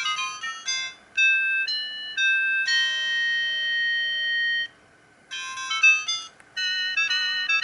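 Siemens CL50 mobile phone playing its polyphonic ringtones: a quick electronic melody with a long held chord, a brief break, then the next tune starts. The sound is thin and high, with almost no bass.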